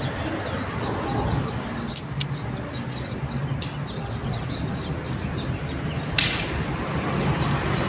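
Outdoor street ambience with a steady low rumble, faint bird chirps, and a few light clicks, the sharpest one about six seconds in.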